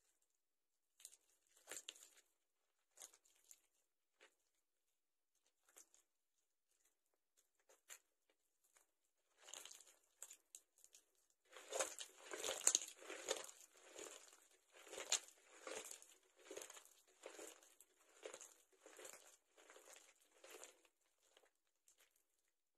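Soaked soap being squeezed and crushed by hand, the soft mushy mass squishing and crackling. It starts as a few scattered squishes, then about halfway in becomes a louder, even run of squeezes, roughly three every two seconds.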